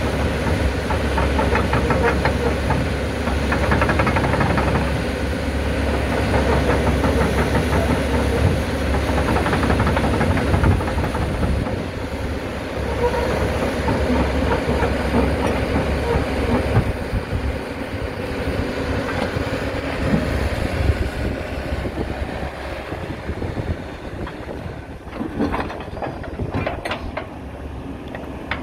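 Komatsu PC110 excavator's diesel engine running, with a steady dense mechanical clatter over the low engine note. It gets quieter about two-thirds of the way through.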